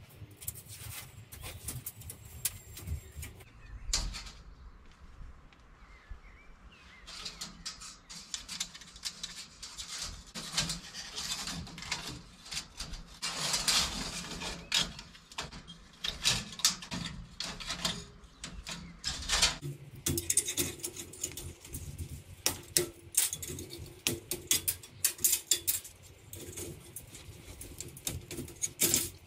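Steel wire mesh rattling and clinking as it is bent and handled, with irregular sharp metallic clicks and scrapes as a round metal flue collar is set into the mesh and tied in with wire and pincers.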